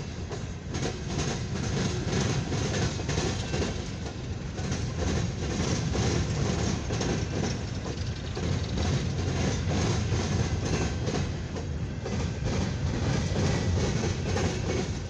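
Long CSX freight train of empty coal hopper cars rolling past, with a steady low rumble and the wheels clacking over the track again and again.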